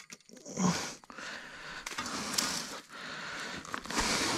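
A fabric shoulder bag being handled and unzipped, a continuous rustling and rasping with short breaks about 1 and 3 seconds in.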